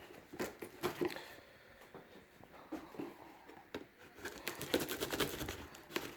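Packaging of a wheel delivery being opened by hand: scattered crinkling, rustling and tearing with small clicks, getting busier about four seconds in.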